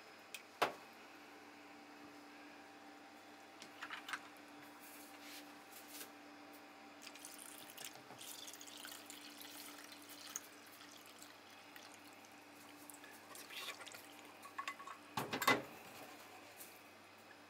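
Liquid marinade being poured from a saucepan onto salmon roe in a plastic tub, dripping, with light clatters of the pan and container. A sharper knock comes about fifteen seconds in, over a faint steady hum.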